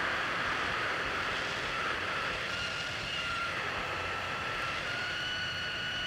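Hot air rework station blowing steadily, a hiss with a faint whine that comes in about two seconds in, as it reheats the solder under a small FPC connector.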